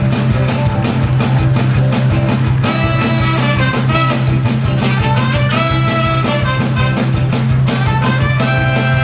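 Upbeat dance-band music with a quick, steady beat and a strong bass; a melody line comes in about three seconds in.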